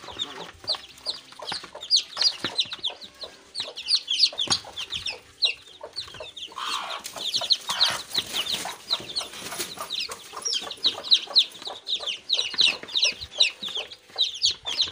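A brood of about eleven newly hatched chicks peeping without pause: many short, high, falling peeps overlapping, several a second. A scratchy rustling joins them for a few seconds around the middle.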